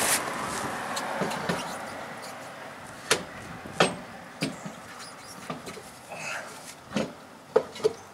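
Steel lug nuts clicking and clinking against the wheel studs and alloy wheel as they are put on and threaded by hand, a scattering of sharp single clicks. A rush of background noise fades out during the first two seconds.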